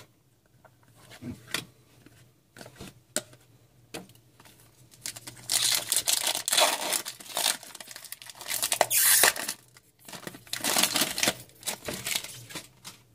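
Light clicks and taps of cards being handled, then a hockey card pack's wrapper being torn open and crinkled in two stretches of a few seconds each in the second half.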